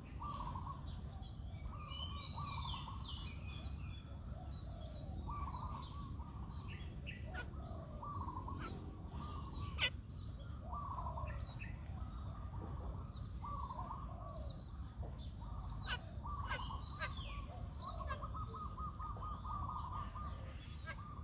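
Several birds calling and chirping: repeated short calls in a middle pitch with higher chirps over them, and a fast chattering run near the end. A single sharp click comes about ten seconds in, over a low steady rumble.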